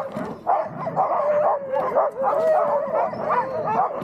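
A team of sled huskies yipping and howling together in an overlapping chorus of wavering cries while the sled is halted. This is the dogs' excitement and eagerness to run.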